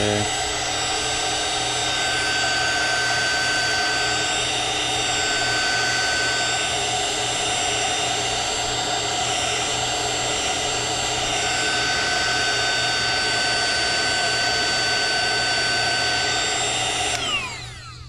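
Heat gun running steadily, its fan blowing with a steady whine while it shrinks heat-shrink tubing over a soldered wire splice. It switches off near the end and the whine winds down.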